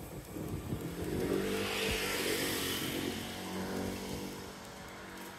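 A motor vehicle passing close by, unseen: its engine and tyre noise builds, peaks about two seconds in, then fades away.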